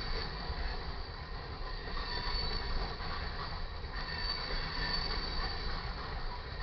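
Loaded coal train cars rolling past with a steady low rumble and a high wheel squeal that swells and fades.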